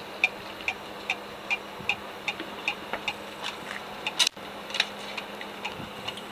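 Steady, even ticking, about two and a half ticks a second, over a faint low hum, with one sharper click about four seconds in.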